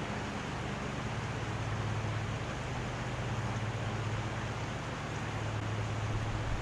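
Steady rushing of a flowing brook, an even noise with a low steady hum underneath.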